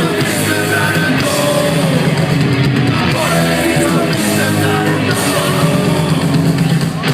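Loud rock music with shouted singing over a full band.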